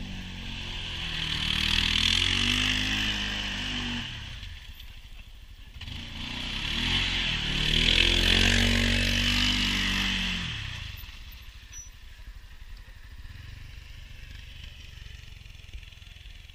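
Arctic Cat Prowler HDX 700 side-by-side's single-cylinder engine revving in two long surges, its pitch rising and falling, as the wheels spin and fling mud. The second surge starts about six seconds in, and the engine then drops back to quieter running.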